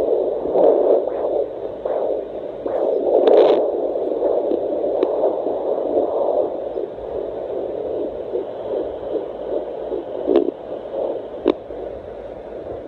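Fetal heartbeat at 14 weeks heard through a handheld fetal doppler's speaker: a fast, regular whooshing pulse over static hiss. A couple of sharp clicks come near the end.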